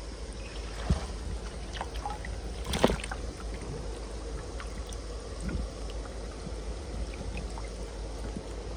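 Water trickling and sloshing, with small clicks and splashes and one sharper splash about three seconds in.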